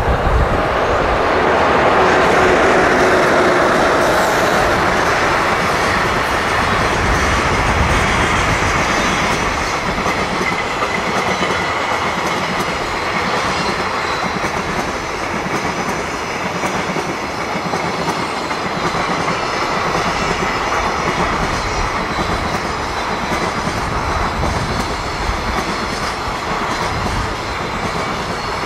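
JR Freight EH500 electric locomotive passing with a freight train, loudest in the first few seconds as the locomotive goes by. A long string of freight wagons then rolls past steadily, with faint high wheel squeal from about ten seconds in.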